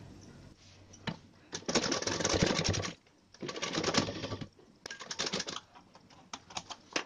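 Sewing machine stitching a seam in three short runs of rapid needle clicks, each about a second long, with a few single clicks between the runs and near the end.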